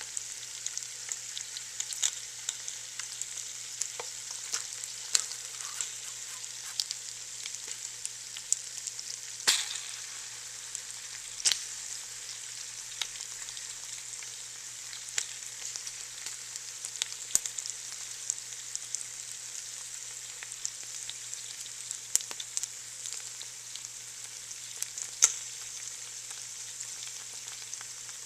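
Chicken skin frying as its fat renders out: a steady sizzle with frequent crackles and sharp pops, a few of them louder than the rest.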